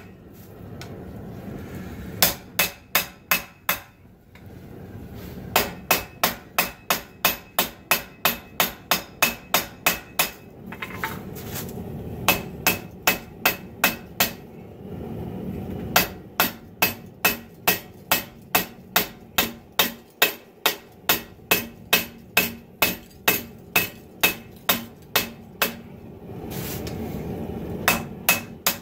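Hand hammer striking a red-hot 80CrV2 steel bar on a 66 lb steel anvil, about three ringing blows a second, drawing out the blade toward the tip. The blows come in runs of several seconds, with short pauses between them where a low steady rumble is left.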